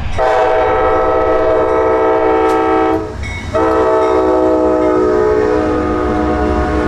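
Amtrak passenger train led by two GE Genesis P42DC diesel locomotives passing close by, its multi-chime air horn sounding two long blasts with a short break about three seconds in, over the rumble of the engines and wheels.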